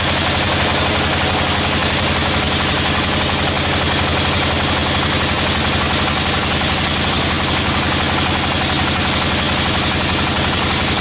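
Engine-driven sawmill machinery running steadily, with a rapid, even mechanical pulse over a low hum.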